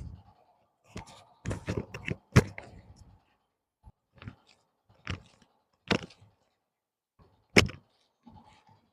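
Hands working a patient's back and spine in a chiropractic adjustment: a series of sharp, irregular knocks and slaps. The loudest comes about two and a half seconds in, with another near the end.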